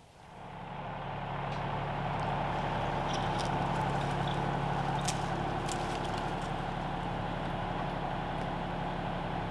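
A small engine starts up and builds over the first second or two, then runs at a steady, unchanging speed, with a few faint clicks over it.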